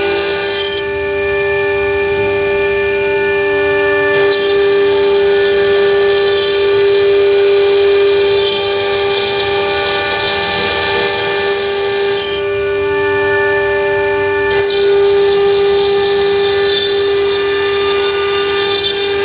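5.5 kW water-cooled CNC engraving spindle running at high speed with a steady high whine, its bit cutting into a stone slab under a water coolant spray. A grinding hiss rides under the whine, and the sound shifts slightly a few times as the cut changes.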